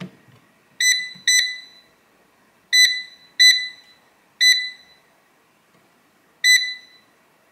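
Touch control panel of a Tower 12L Vortx digital air fryer oven beeping as its buttons are pressed: six short, high beeps at uneven intervals, each fading out quickly.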